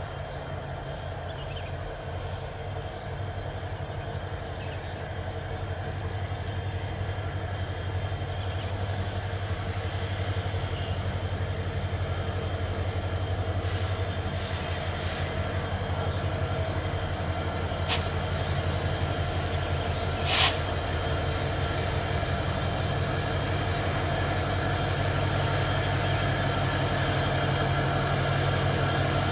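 CC 205 diesel locomotives running in double traction as they approach slowly, a steady low engine rumble that grows gradually louder. A sharp click comes about two-thirds of the way in, followed a couple of seconds later by a brief louder hiss-like burst.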